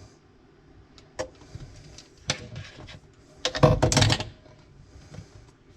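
Clunks and rattles of a dishwasher being handled and pulled out from under the counter: two single knocks, then a louder burst of clattering about three and a half seconds in.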